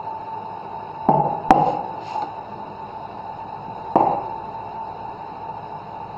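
Three knocks of a ceramic cup and milk jug being handled on a wooden counter, the second one sharp, about a second into the sound and again near four seconds. A steady hum runs underneath.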